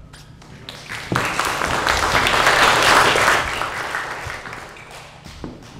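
Audience applauding: the clapping swells about a second in, peaks in the middle and dies away gradually.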